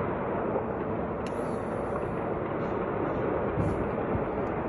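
Distant fighting heard as a steady low rumble, with a few faint sharp cracks on top.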